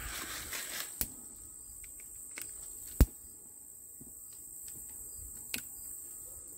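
A few sharp clicks, the loudest about three seconds in and another shortly before the end, from a long-reach utility lighter being sparked to light a small thermite charge, over a steady high-pitched whine.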